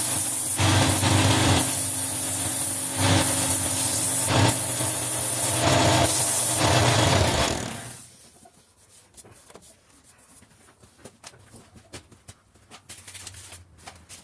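Wood lathe running while a turning chisel cuts into the spinning wood, making a coarse scraping hiss over the motor hum that surges every second or two. About eight seconds in the cutting and motor noise die away, leaving only faint clicks and taps.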